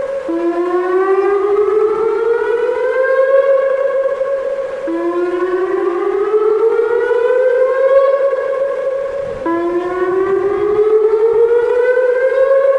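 Whelen WPS-2906 electronic outdoor warning siren sounding its 560 Hz whoop signal: a rising tone that climbs and then holds, dropping back to start again about every four and a half seconds, three times. It is the siren's severe thunderstorm warning signal.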